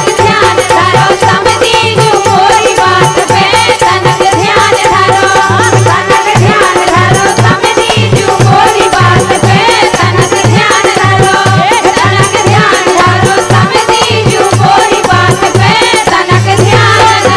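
Women singing a Bundeli wedding gari, a folk song of teasing verses, to a steady drum beat and rattling percussion.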